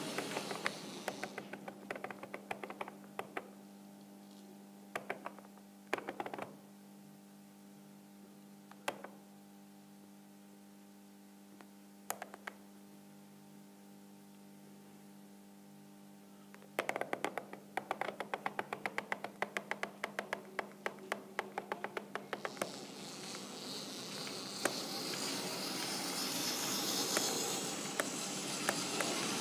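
A model goods train behind a Märklin BR 44 steam locomotive running past on the layout: the locomotive's electric motor gives a steady hum with overtones, and the wheels click over rail joints in quick clusters. A rushing hiss of rolling stock is heard at the start and swells over the last several seconds as the wagons go by.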